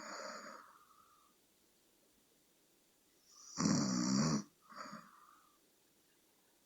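A sleeping person snoring: a soft breath at the start, then one loud, buzzing snore about three and a half seconds in lasting under a second, followed by a short, softer breath.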